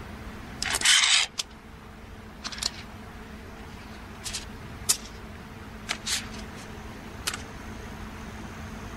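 Stiff plastic film sheets crackling as gloved hands handle them on a light table. There is one long rustle about a second in, then several short crisp crackles, over a steady low hum.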